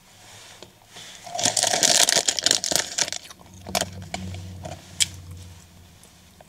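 Plastic pastry wrapper crinkling as it is handled close to the microphone, a dense burst of rustling about a second and a half in, followed by scattered lighter crackles and clicks.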